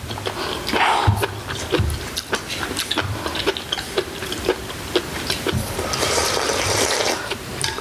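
Close-up eating sounds of bulgogi hotpot: wet slurping of broth and flat glass noodles and chewing, with many small clicks of spoons and chopsticks. A longer slurp comes about six seconds in.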